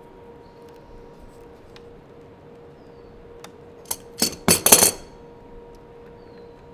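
Metal hand tools clinking: a light click, then a quick cluster of sharp metallic clinks with a short ring about four seconds in, over a faint steady hum.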